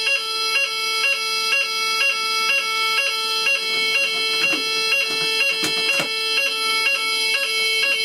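Fire alarm sounder going off in its French fire alarm tone, set off by a heat test of the smoke and heat detector: a steady note broken by a short blip about three times a second. Two sharp clicks come about six seconds in.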